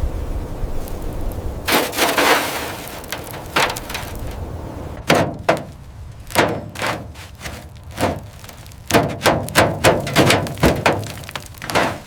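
A brief rush of noise about two seconds in, then from about five seconds an irregular run of sharp knocks and clatters.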